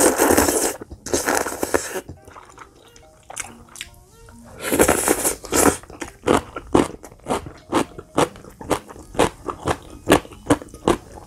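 A person slurping thin wheat noodles out of soup: two long slurps at the start and another about five seconds in, then quick wet chewing and lip-smacking clicks, about three a second.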